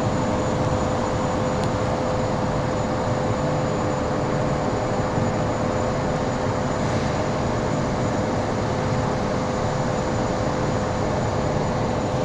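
A machine running steadily, a constant hum with an even noise and no change in pace.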